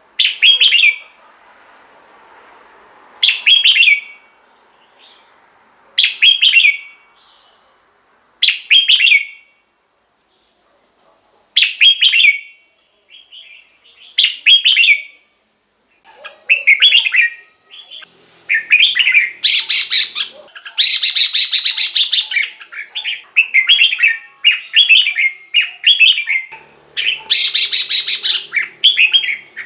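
Red-whiskered bulbul singing: short, loud phrases repeated about every three seconds, then coming thick and fast, almost without a break, from about halfway through.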